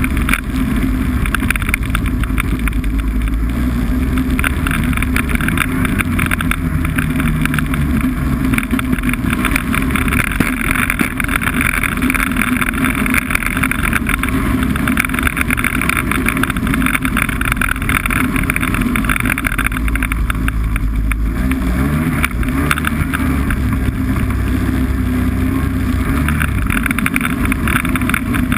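Snowmobile engine running steadily under way, with wind hiss over it; the engine note shifts briefly about three quarters of the way through.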